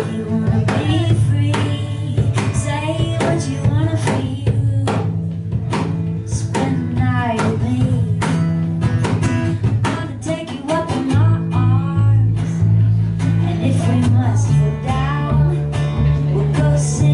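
Live acoustic song performance: a woman singing a wavering melody over plucked and strummed guitar.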